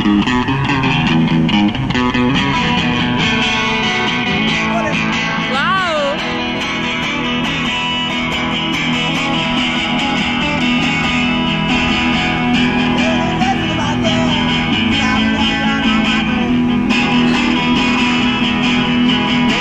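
Electric guitar played by a street busker: a continuous run of strummed chords and picked notes, with a sliding, bending high figure about six seconds in.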